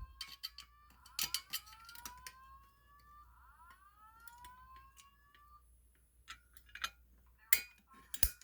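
Fire alarm signal sounding faintly as a few rising sweep tones, several overlapping, that stop about five and a half seconds in. Scattered sharp clicks and knocks follow.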